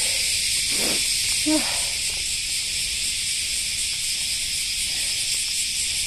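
Chorus of cicadas: a dense, steady, high-pitched drone.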